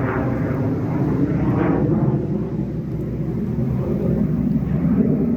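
Fighter jet engine noise from a jet flying past overhead, a loud steady rumble.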